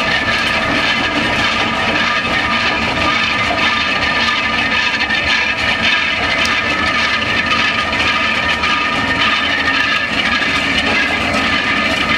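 Union Pacific DDA40X 'Centennial' diesel-electric locomotive, with twin EMD 16-645 diesel engines, running steadily at idle as a continuous hissing mechanical drone with a few steady whining tones.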